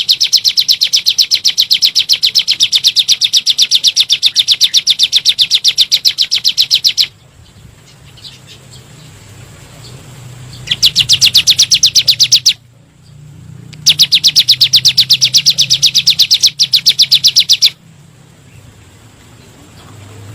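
Ciblek gunung, a mountain prinia, singing its rapid-fire 'nembak' song: fast runs of sharp repeated notes in three long bursts with short pauses between.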